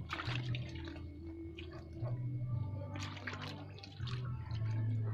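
Water splashing and trickling in a shallow tank crowded with farmed frogs, with scattered small drips and splashes. Under it runs a steady low hum that shifts in pitch a few times.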